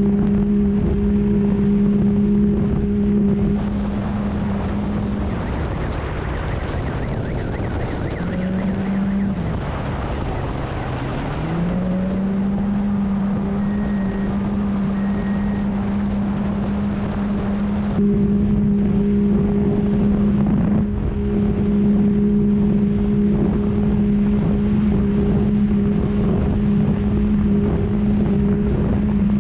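Off-road race vehicle's engine running at steady high revs at speed over a rough, wind-buffeted rumble. About five seconds in the revs sag and drop further, then climb back to the steady pitch about twelve seconds in.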